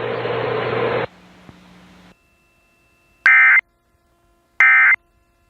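Radio hiss and hum cut off about a second in, then near silence, then two short, loud bursts of buzzing digital data tones. These are the Emergency Alert System's end-of-message (SAME EOM) bursts that close the flash flood warning.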